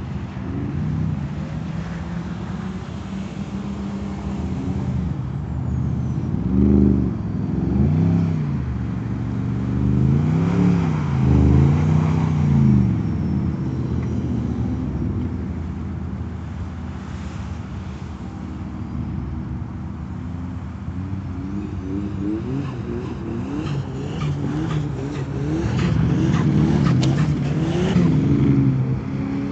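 Porsche Cayenne engine revving up and down in repeated surges as the SUV is driven sideways in drifts, easing to a steadier, lower running in the middle and revving hard again near the end.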